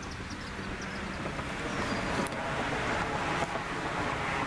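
Road traffic on a busy street: a steady hiss of passing vehicles that slowly swells, with a couple of faint clicks.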